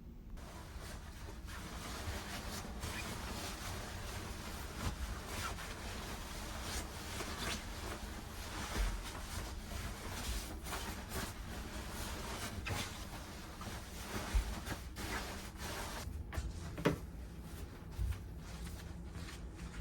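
Steady low hum and rushing noise of a ferry under way, with scattered short knocks and clicks.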